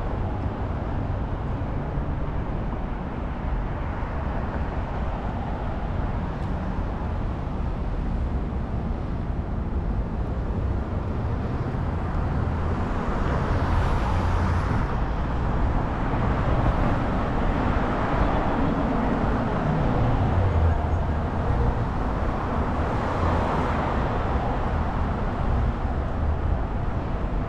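City street traffic heard from a bicycle on the move: a steady low rumble, with passing vehicles swelling louder a few times through the middle and near the end.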